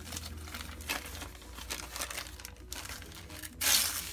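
Gift-wrap paper crinkling as hands unfold it and pull it off a package, with a louder rip of the paper about three and a half seconds in.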